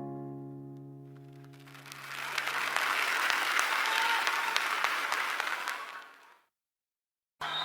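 Audience applause that swells up as a held electric-piano chord fades away, lasts about four seconds and dies out. After a short dead silence, music starts again near the end.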